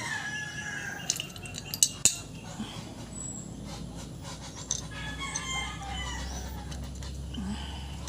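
Chickens calling, with two sharp clicks about two seconds in.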